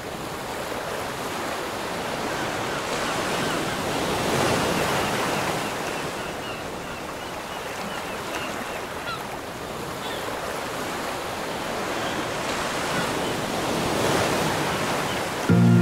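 Ocean surf breaking on the beach in a steady rush, swelling as a wave comes in about four seconds in and again near the end. Faint high chirps sound now and then in the middle.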